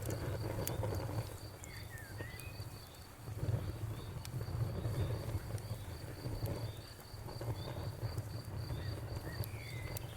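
Campfire burning with a low rumble and scattered sharp crackles and pops. Behind it a cricket chirps steadily in an even pulsing rhythm, and a few short whistles rise and fall.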